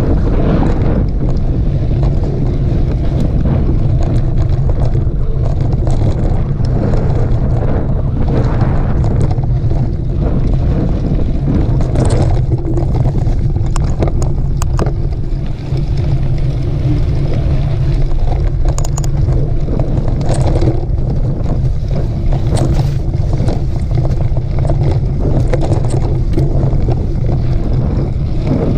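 Wind buffeting the microphone during a mountain bike ride: a steady, loud low rumble, with scattered clicks and rattles from the bike on the trail.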